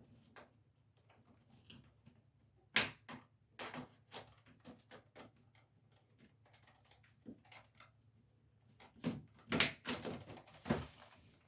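Scattered clicks and knocks of hand work with plastic cable trunking. There is a sharp knock about three seconds in and a louder cluster of knocks near the end.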